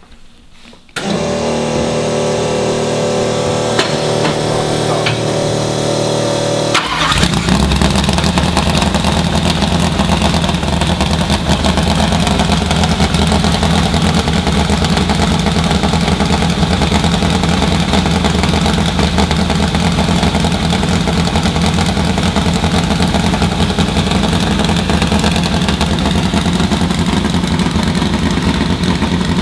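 Race-built flathead Ford V8 being started: a steady whine for about six seconds while it is cranked, then it fires about seven seconds in and runs steadily and loudly.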